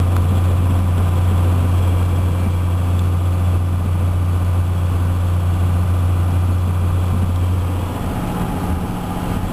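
Steady low drone inside the cab of a 1995 Dodge Ram pickup as its Cummins 5.9-litre inline-six turbodiesel cruises at highway speed. The drone dips slightly and shifts about eight seconds in.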